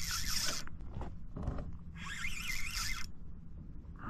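Fishing reel being wound in short bursts, a zipper-like whirr with a wavering pitch, twice, as a hooked flathead is retrieved.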